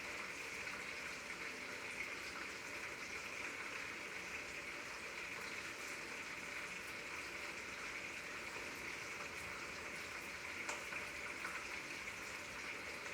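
Food cooking in a pot over a wood fire: a steady sizzling, bubbling hiss with faint fine crackles.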